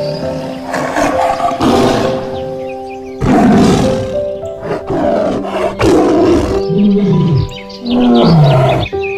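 A tiger roaring several times, each roar a loud rough burst of about a second, over background music with long held notes.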